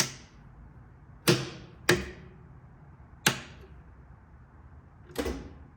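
Five sharp clicks or knocks at uneven intervals, each with a brief ringing tail.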